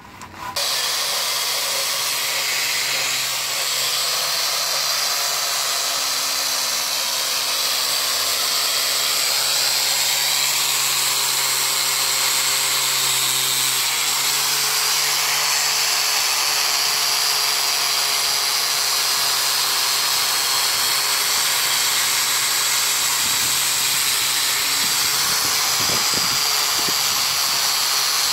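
Handheld electric sander with a foam-backed sanding disc switched on about half a second in, then running steadily as the disc sands the hardwood surface of a solid jackfruit-wood door.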